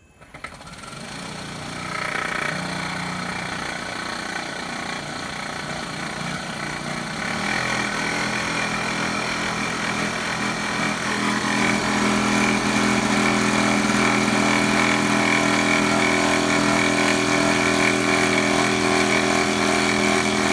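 Makita inverter high-pressure air compressor starting up and running, pumping air into its tanks; its motor and pump hum climbs in pitch and loudness in steps over the first dozen seconds, then holds steady until it is switched off near the end. It runs a bit noisy, which the seller fears may come from dirt inside the pump.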